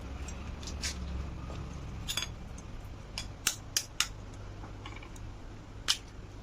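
Kitchen utensils and dishes clicking and knocking: a handful of sharp clicks spread out, the loudest near the end, over a quiet steady background.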